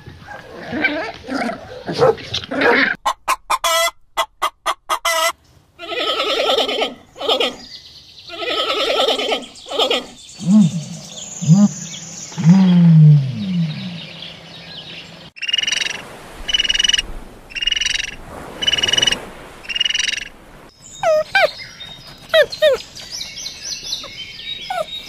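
A string of different animal calls, one after another. Short pitched yelps come first, then a rapid run of clicks, loud harsh calls, low sliding grunting calls, and five evenly spaced high calls. Near the end come wavering whines.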